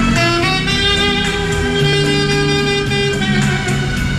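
Saxophone playing a melody live over a recorded backing track with a bass line and a steady beat. A short run of notes at the start leads into a long held note, then further notes near the end.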